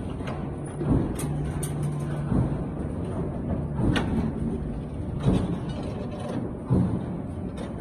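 CNC pipe clamp punching and bending machine running, with a steady mechanical hum and several sharp knocks from its punching and bending strokes. A low steady tone sounds briefly about a second in.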